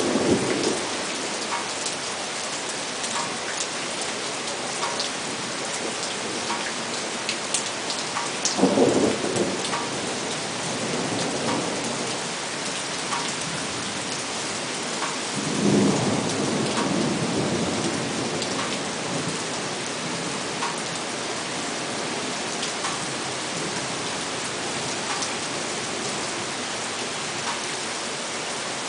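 Heavy rain falling steadily in a thunderstorm, with thunder rumbling twice: once about nine seconds in and again, a little longer, about sixteen seconds in.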